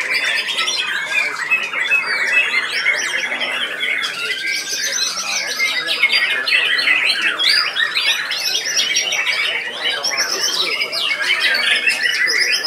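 Many caged white-rumped shamas (murai batu) singing at once, a dense, unbroken tangle of sharp, rapid whistled notes and calls overlapping one another.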